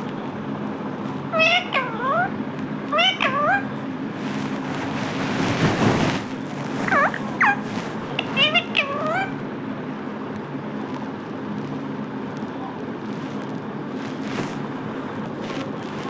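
Rose-ringed (Indian ringneck) parakeet giving short, bending, meow-like calls in four clusters during the first nine seconds, with a rustle between them, over a steady low hum.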